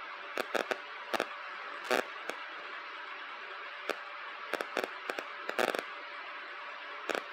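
Light handling noise: a scatter of small, irregular clicks and taps over a steady background hiss.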